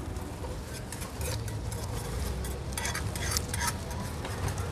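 A utensil stirring and tossing a Thai spicy salad (yum) in a bowl, with scattered short clinks and scrapes against the bowl over a steady low background hum.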